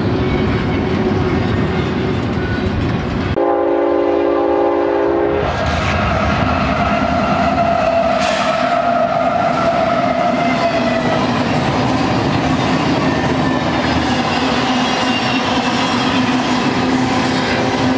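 A double-stack freight train rolls past with steady wheel and rail noise. About three seconds in, the sound cuts to a multi-tone diesel locomotive horn chord held for about two seconds. Union Pacific GE diesel locomotives then pass at speed, their engines and wheels running, with double-stack cars rolling behind.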